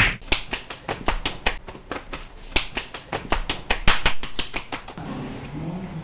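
A fast run of sharp clicks or taps, several a second, stopping about five seconds in.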